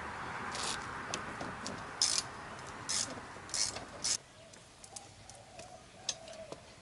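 Hand ratchet wrench clicking in short runs while undoing the bolts of a car seat rail. A steady background whir runs underneath and cuts off suddenly about four seconds in.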